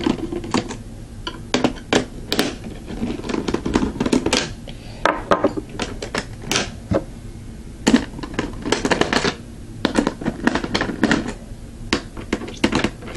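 Irregular clicks, taps and scrapes from a screwdriver working the screws of a CPU cooler's retention bracket on a motherboard, with small metal parts being handled.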